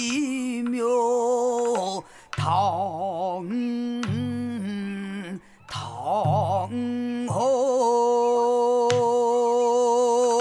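Male pansori singer holding long, slow sung notes with a wide, wavering vibrato, in a drawn-out line without clear words; the voice breaks off briefly about two seconds in and again about five and a half seconds in.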